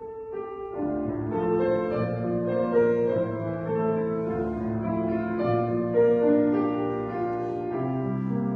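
A piano starts playing, with sustained melody notes over held chords.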